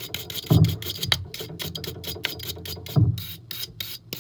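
A brush scrubbing soot out of a furnace's metal gas burner in quick rasping strokes, several a second, with a couple of duller knocks as the burner is handled. The soot comes from propane and was blocking the flame's carryover between burners.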